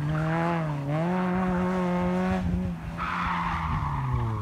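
Renault Megane rally car's engine revving hard at high rpm, dipping briefly about a second in and then pulling again. About three seconds in its tyres squeal on the paving while the engine note falls.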